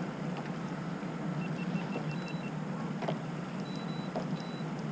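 Boat motor running with a steady low hum, over which a faint electronic beep repeats about six times in quick succession, then a few more higher beeps near the end.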